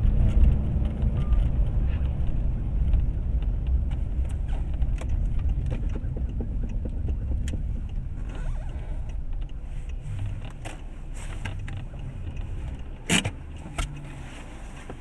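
Car road and engine noise heard from inside the cabin: a steady low rumble that gradually quietens, with scattered small clicks and rattles and two sharper clicks near the end.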